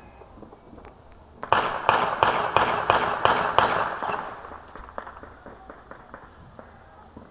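A rapid volley of about seven loud bangs, roughly three a second, each echoing briefly, trailing off into scattered fainter pops: New Year's Eve noise-making.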